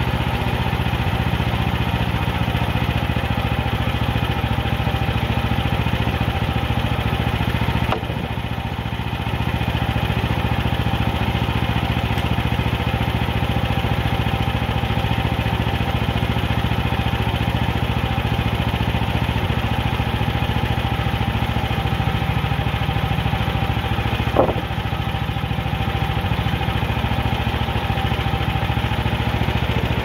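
Small gas engine of a Frontier OS27 bandsaw mill running steadily. It dips briefly about eight seconds in, and there is a single knock about twenty-four seconds in.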